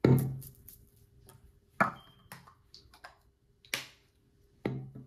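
Four sharp knocks and clicks spread over a few seconds from a plastic body-mist bottle being handled, the first and last with a short low ring.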